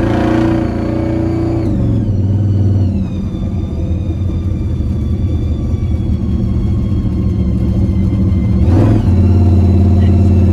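Supercharged big-block Chevy V8 running, its revs easing off about two seconds in with a high whine falling in pitch. The revs rise again in a short surge near the end and it keeps running louder.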